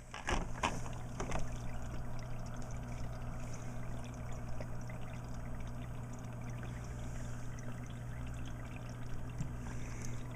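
Aquarium filter water trickling and splashing steadily into the tank over a constant low hum, with a few short knocks in the first second or so.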